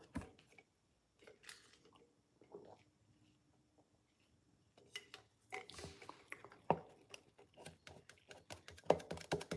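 Faint sips and swallows from a plastic drink bottle, with small handling clicks. Near the end comes a quick run of taps on a keyboard.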